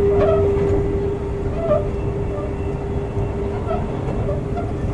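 Sotetsu 9000 series electric train with a Hitachi IGBT VVVF inverter running, heard from inside the car: a steady rumble of wheels on rail under a steady hum from the inverter and traction motors that slowly fades. The overall level drops a little about a second in.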